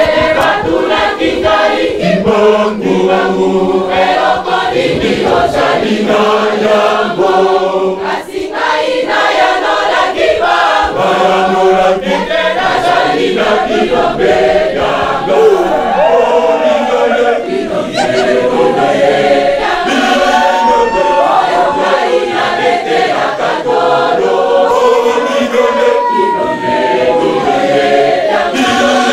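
Large church choir singing, many voices together in sustained, stepping notes.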